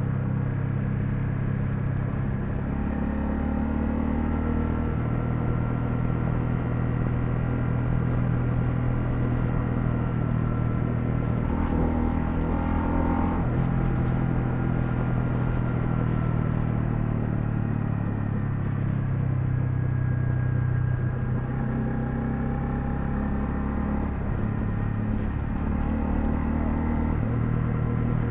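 Honda CL250 motorcycle engine running on the road, its pitch stepping up and down several times as the revs change.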